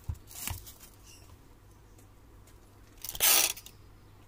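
Hands handling things on a cloth-covered table: a soft knock at the start and a short scrape, then about three seconds in a brief loud rustle of plastic bubble-wrap packaging being pushed aside.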